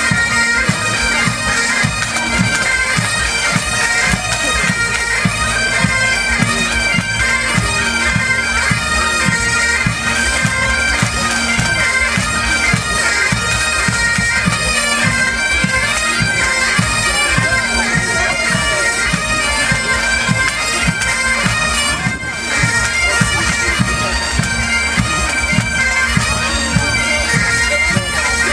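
A pipe band playing: Great Highland bagpipes sound a tune over their steady drone, with a regular drum beat underneath.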